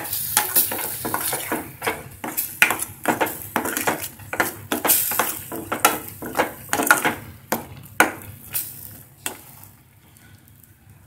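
A slotted steel spoon stirring thick coriander masala paste frying in oil in a metal kadai: repeated scrapes and clinks against the pan over a low sizzle. The stirring stops about nine and a half seconds in.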